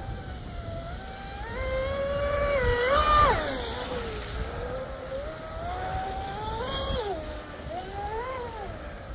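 Electric RC speedboat's TP Power 4060 brushless motor and surface-running prop whining at high speed. The pitch climbs to its loudest about three seconds in and drops sharply as the boat goes past, then rises and falls again twice near the end as it comes around the pond.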